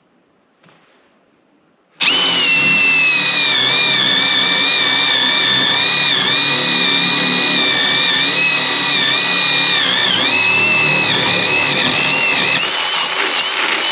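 Mac Tools 1/4-inch brushless impact driver drilling a hole: a loud, high-pitched motor whine starts about two seconds in and runs steadily for about eleven seconds, dipping slightly in pitch now and then as the bit bites, and fades near the end.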